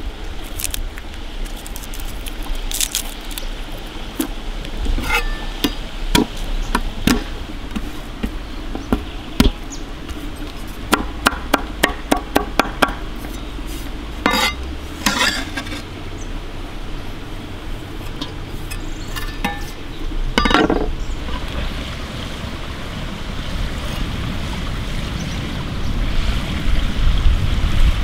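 Garlic being peeled by hand and then chopped with a knife on a wooden cutting board. Scattered taps and rustles lead into a quick run of about eight knife knocks on the board, about four a second, followed by a few scrapes.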